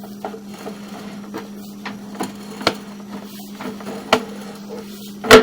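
Sewer inspection camera equipment being handled: a steady low electrical hum with scattered clicks and knocks, and one sharp, loud knock near the end.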